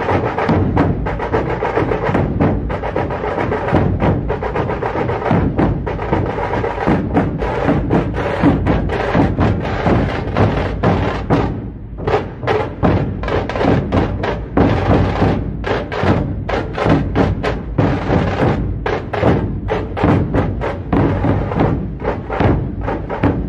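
Music with strong percussion and a steady beat, briefly dropping away just before halfway.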